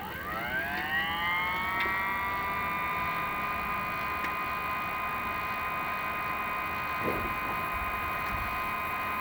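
An electric motor spinning up: a whine rises in pitch over the first couple of seconds, then holds steady at a high pitch. A brief low knock comes about seven seconds in.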